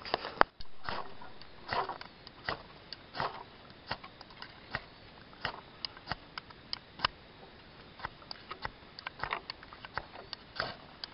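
Dry mullein-leaf tinder and small sticks catching fire, crackling with irregular sharp pops and clicks, mixed with a few soft puffs.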